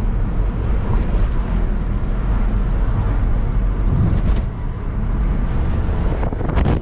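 A car driving along a road: a steady low rumble of road and engine noise.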